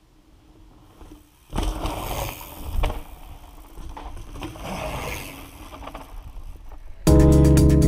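A mountain bike rolling past on a rocky dirt trail, its tyres crunching over dirt and stones in an uneven rush of noise. Loud background music cuts in suddenly near the end.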